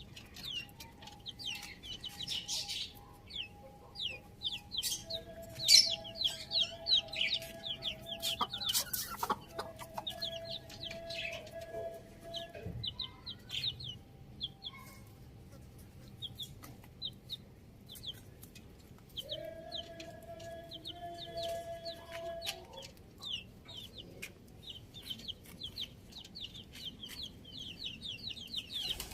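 Chickens clucking, with rapid high-pitched chirps through the whole stretch. Two long, steady, held tones come about five seconds in and again about twenty seconds in.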